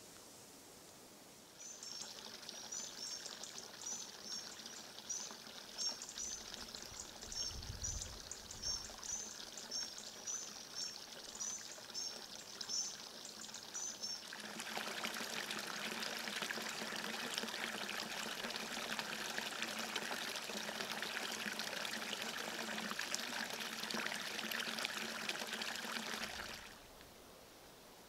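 Small forest brook trickling, getting louder and fuller about halfway through and cutting off suddenly near the end. Over the first half, a small bird gives a rapid series of high chirps.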